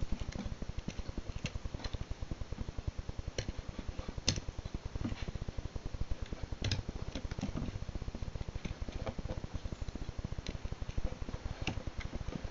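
A Randall Model 28 knife carving curls from a wooden stick: scattered sharp clicks and scrapes of the blade on the wood, over a steady, fast, low pulsing.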